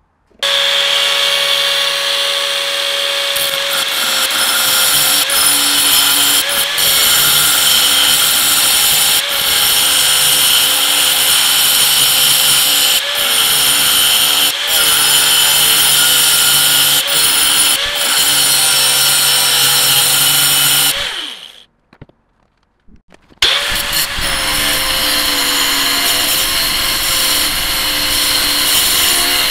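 Angle grinder cutting into a steel axe head: a loud, steady whine with a grinding rasp as the wheel bites the metal. It winds down and stops about two-thirds of the way through, then starts up again abruptly a couple of seconds later.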